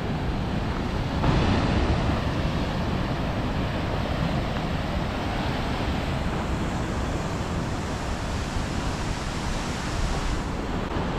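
Ocean surf breaking against the shore: a steady rushing wash that swells about a second in, with wind buffeting the microphone.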